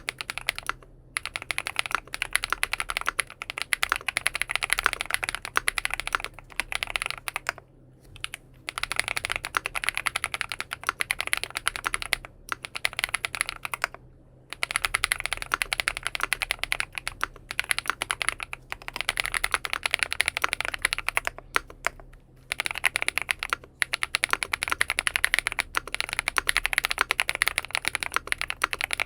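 Fast typing on a full-aluminium XINMENG M71 mechanical keyboard fitted with BSUN Bunny switches: a steady stream of key clacks in runs of several seconds, broken by short pauses.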